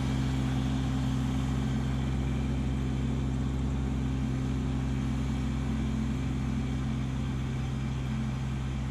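Kubota LX2610 compact tractor's three-cylinder diesel engine running steadily, a low even hum.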